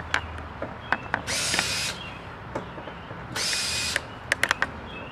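Cordless drill/driver run in short bursts, about half a second each, twice, to back out the door's hinge screws, with sharp metal clicks between the bursts.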